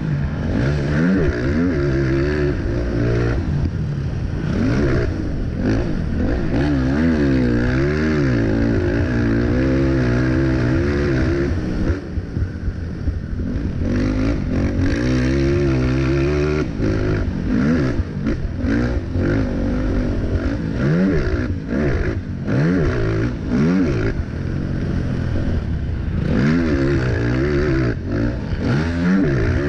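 Racing quad (ATV) engine heard close on board, revving up and falling back over and over as the throttle is opened and closed around a dirt motocross track. It goes briefly quieter and choppier about twelve seconds in.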